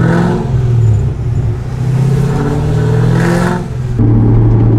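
Pontiac GTO's V8 engine heard from inside the cabin, pulling with its note rising twice as it accelerates. About four seconds in it gives way to a steady drone at cruising speed.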